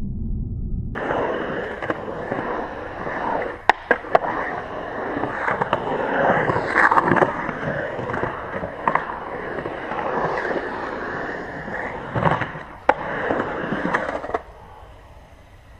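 Skateboard wheels rolling and carving on a concrete bowl, a steady rolling noise with sharp clacks of the board about 4 seconds in and again about 13 seconds in. It is preceded by a short muffled low rumble in the first second and drops away to faint background near the end.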